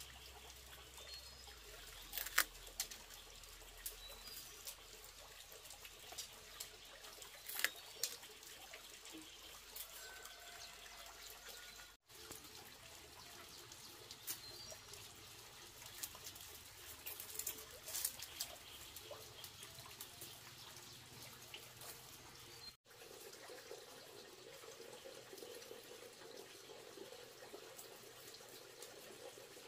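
Water running or trickling steadily, with scattered small clicks and knocks. The sound drops out abruptly for an instant twice.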